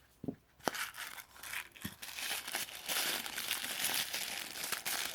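A couple of sharp clicks as a small doll-accessory box is opened, then plastic packaging crinkling continuously as its contents are handled.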